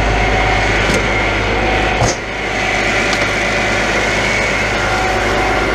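Grapple truck's engine idling steadily, with a single thump about two seconds in.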